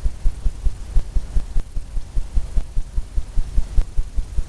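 Fan brush tapping quickly and repeatedly against a stretched canvas: dull, low thuds at about five a second.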